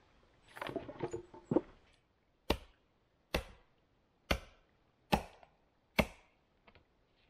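A short clatter of wooden logs being handled, then an axe chopping a wooden stake to a point on a chopping block: five sharp strikes about a second apart.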